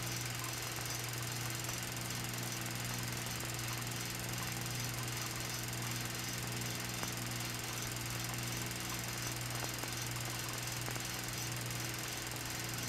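A steady low hum with constant hiss underneath, unchanging throughout.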